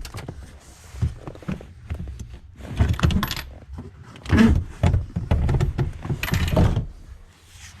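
Irregular metallic rattling and clinking with knocks, in several bursts about a second apart, from hand work inside a car.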